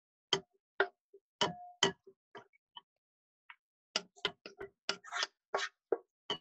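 Wooden spatula knocking and scraping against a frying pan and bowl while browned ground meat is scooped out of the pan: a string of sharp, irregular knocks, a few drawn out into short scrapes.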